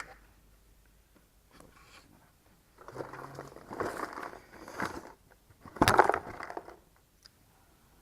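Rubber upper trim cover being pressed and pushed into its slot over the grille: a series of scraping, rustling rubs, the loudest about two thirds of the way in.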